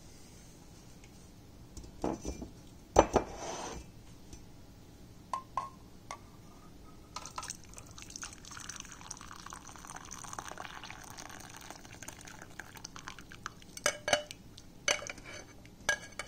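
A few sharp clinks of a metal mesh strainer against a ceramic mug, then liquid pouring and trickling through the strainer into the mug for several seconds, with more clinks near the end.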